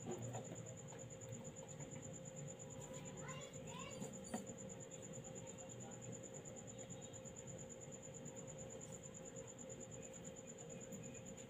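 Quiet workbench room tone: a steady high-pitched electronic whine and a low hum, with a few faint rising chirps about three seconds in and a single light click about four seconds in.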